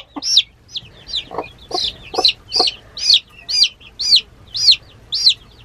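A young chick peeping loudly and over and over, about two shrill peeps a second, each rising then falling in pitch, while it dangles held by the head: distress calls. A few soft low clucks sound underneath.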